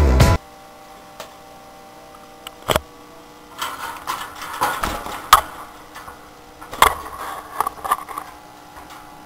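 Music cuts off just after the start. Then come scattered sharp clicks and light rustling in a small room, typical of pet birds moving about in a cage.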